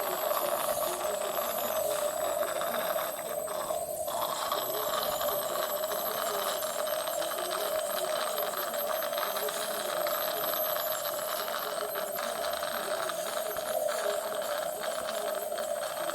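Dental treatment-room equipment running steadily: a constant hum over an even hiss, like the chair-side suction and air lines of a dental unit, with a few faint clicks.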